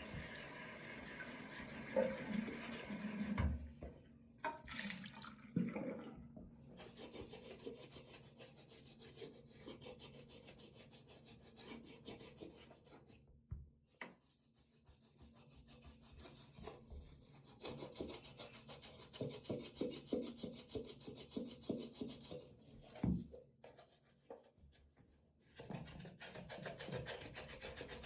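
A sneaker being scrubbed with a brush at a sink: quick back-and-forth brushing strokes in bursts, with pauses between them. Running tap water is heard at first and stops about three seconds in.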